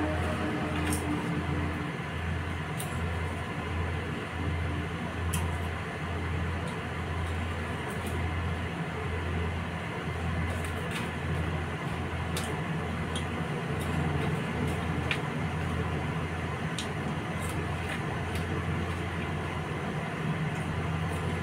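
A low, steady rumbling hum that throbs unevenly. A few sharp crunches of a crisp vegetable snack being chewed stand out over it now and then.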